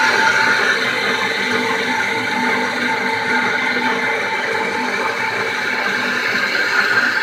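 Motor-driven biogas slurry mixer running steadily: a constant mechanical hum and whine over the sound of its rotating shaft churning the slurry in the tank.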